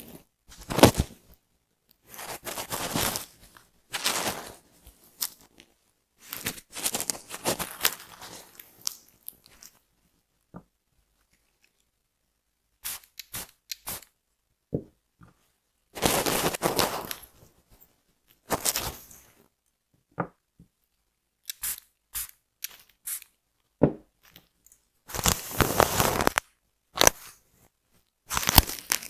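Close-up scratching and scraping on a flaky, dandruffed scalp: short bursts of scraping a second or so long, separated by pauses, with scattered sharp clicks.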